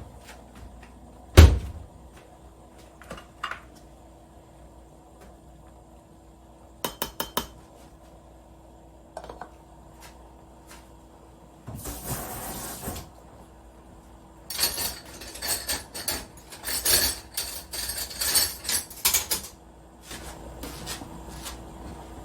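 Kitchen handling sounds: a single sharp knock about a second in, a quick run of clicks, a short rush of noise, then several seconds of clattering dishes and utensils, over a faint steady hum.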